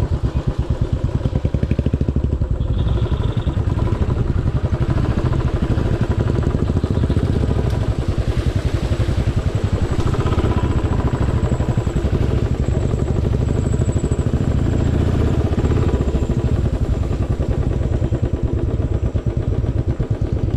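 Royal Enfield motorcycle engine running while riding, a steady rapid pulsing throb.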